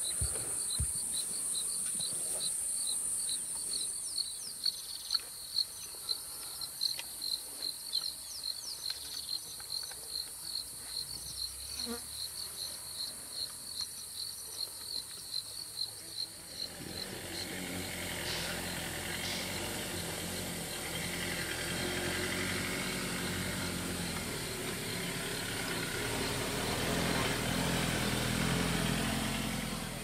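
Insects chirping in a steady rhythm, about three chirps a second. From about 17 s in, a vehicle engine running steadily takes over, a low rumble with a broad hiss that covers the chirping.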